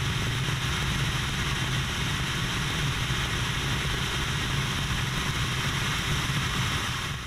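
Aerobatic plane's piston engine and propeller running steadily in flight, heard as a constant low drone under heavy wind rush on the onboard camera; it fades out at the very end.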